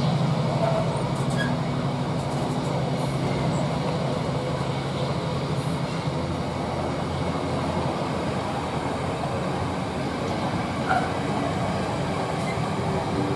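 Intermodal container freight train's loaded flat wagons rolling past close by, a steady noise of steel wheels running on the rails.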